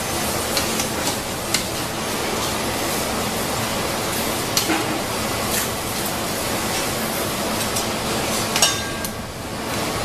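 Steady background noise of a food workshop with a few light clicks and clinks, like utensils set down on a worktable, the sharpest near the end.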